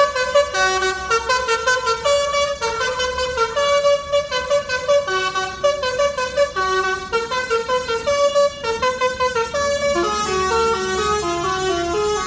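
Basuri telolet musical air horn on a bus, playing a quick melody note by note. About ten seconds in, it changes to a lower tune.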